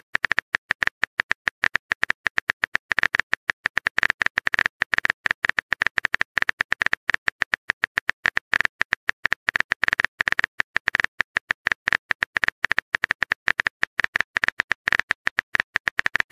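Keyboard typing sound effect: rapid, irregular clicks, several a second, as a message is typed into a phone chat box.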